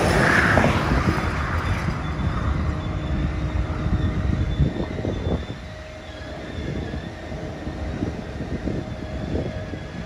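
A tanker semi-truck passes close by, loudest in the first second or two and then fading, while a slow freight train's cars rumble along the track with a few clanks and a faint steady whine.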